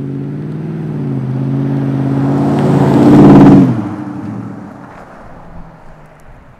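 Ford F-150's 5.0 V8 running through a Magnaflow muffler with the resonator deleted, the truck driving past under acceleration. The engine note builds to its loudest about three and a half seconds in, then drops off and fades away.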